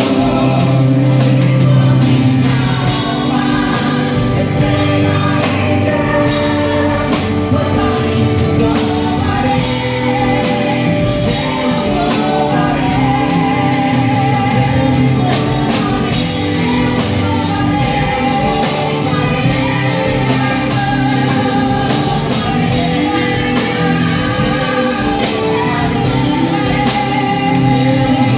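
Christian pop-rock song: singing over a full band with drums and a steady beat.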